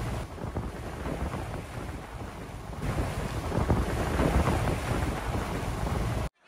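Wind buffeting the microphone over sea and boat noise: a steady rushing with a heavy low rumble that cuts off suddenly near the end.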